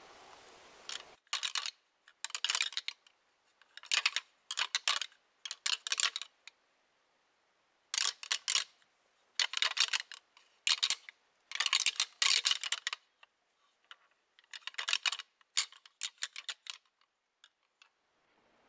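A pair of deer antlers being rattled: tines clashing, clacking and grinding together in about a dozen irregular bursts of clatter, each half a second to a second long, with short pauses between them. This is the hunting technique of rattling, meant to mimic two whitetail bucks sparring. The rattling stops shortly before the end.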